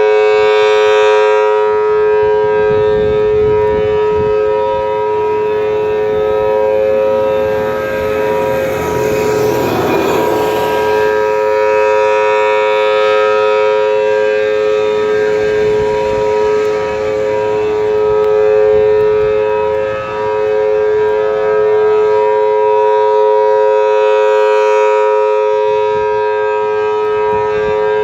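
Federal Signal Thunderbolt 1000T outdoor warning siren sounding a loud, steady two-tone chord at unchanging pitch. It grows brighter near the start and again near the end as the rotating siren turns toward the listener. A brief rushing noise rises and fades about ten seconds in.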